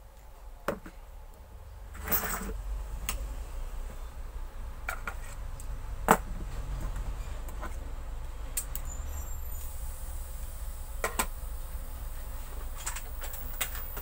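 Scattered clicks and knocks of metal mixer grinder motor parts and hand tools being handled during reassembly, over a low steady rumble. The sharpest click comes about halfway through, and a faint high whine sets in about two-thirds of the way through.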